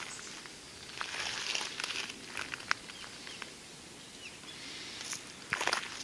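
Footsteps crunching on gravel, in two spells: about a second in and again near the end.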